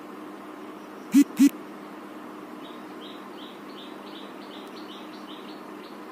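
Two short, loud knocks about a quarter second apart, over a steady low hum and a series of faint high chirps repeating a few times a second.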